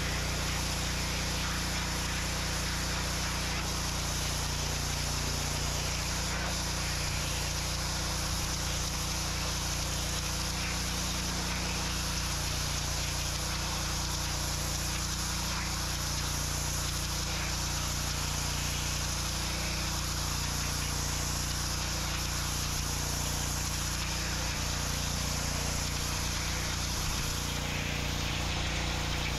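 Pressure washer running steadily: an engine's even drone under the hiss of the water jet spraying the brick sidewalk.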